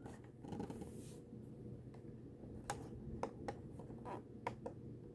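Faint clicks of small buttons being pressed, a handful of them spaced irregularly through the second half, over a low steady background hum.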